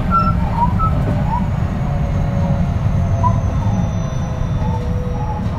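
JR West 223 series 2000 electric train standing at a platform, its onboard equipment giving a steady low rumble, with faint short chirps over it.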